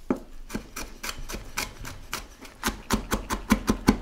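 Chef's knife chopping peeled garlic cloves on a wooden cutting board: a few scattered knocks at first, then quicker, even chopping at about five strokes a second in the last second and a half.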